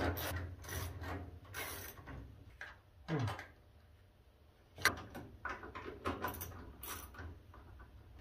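Caster bolts being tightened on a steel tool chest with a wrench: a run of repeated rasping strokes, a short falling sound about three seconds in, a sharp click near the five-second mark, then more strokes.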